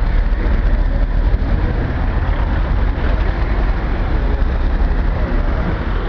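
Steady low rumble of outdoor street ambience.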